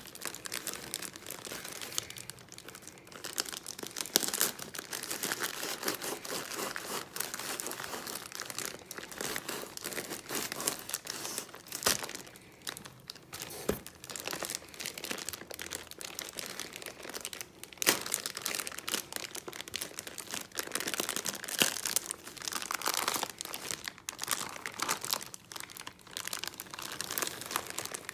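Plastic shipping bag crinkling and rustling as it is handled and opened, with frequent sharp crackles.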